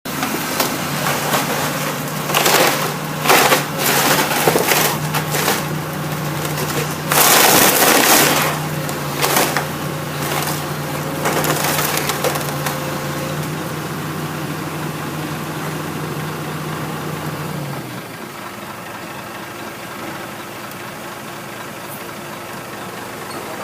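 House being demolished by a heavy machine: its engine runs steadily while wood splinters and crashes in repeated loud bursts over the first twelve seconds. The engine note drops away about eighteen seconds in, leaving a quieter steady hum.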